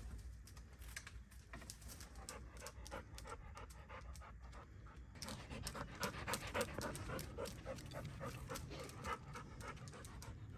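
Hedgehog eating cat food at close range: rapid, irregular crunching clicks with breathy snuffling, busier and louder about halfway through.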